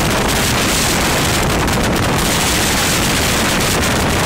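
Steady wind buffeting the microphone over the rush of water and engine of a moving boat.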